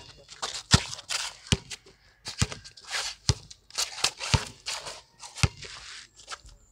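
Basketball bouncing on a concrete court as it is dribbled, about one bounce a second, with sneakers scuffing and shuffling on the concrete between the bounces.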